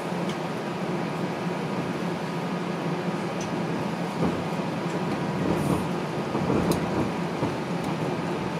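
Interior of a TTC Flexity Outlook streetcar rolling slowly: a steady rumble with a faint motor hum, and a few light knocks and rattles around the middle.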